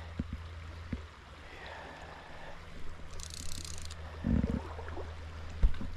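Creek water running over a steady low rumble, with a brief high hiss about three seconds in and a couple of knocks and bumps.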